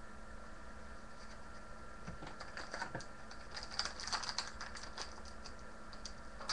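Trading card pack wrapper crinkling and crackling in the hands as a pack is opened and its cards are handled, starting about two seconds in and busiest near the middle.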